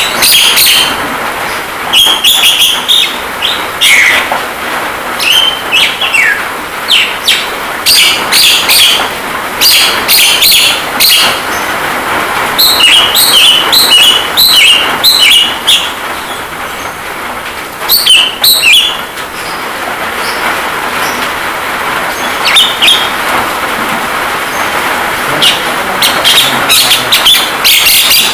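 Javan myna (jalak kebo) singing in clusters of quick, sharp, chattering notes with short pauses between them, over a steady hiss of rain sound.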